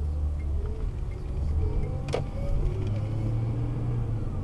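Inside a moving car's cabin: a steady low engine and road hum whose note rises about three seconds in as the car gathers speed. There is one sharp click about two seconds in.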